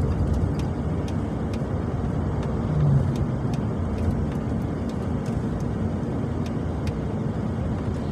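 Steady low road and engine rumble inside a moving car, with a brief louder swell about three seconds in.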